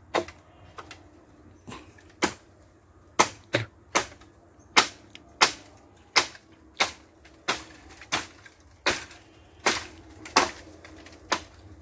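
Sharp knocks of chopping at bamboo stems. They come scattered at first, then settle into a steady beat of about one and a half strikes a second from about three seconds in.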